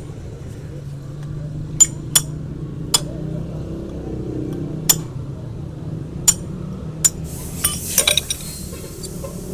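Metal hoof-trimming tools working on a horse's overgrown hoof: sharp clinks and snaps at irregular intervals of about a second, then a quick cluster of clicks with a scraping hiss near the end.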